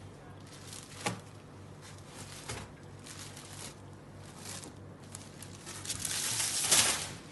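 Silk saree rustling and swishing as it is unfolded and spread out by hand, in a run of separate rustles with a sharp tick about a second in and the longest, loudest swish near the end.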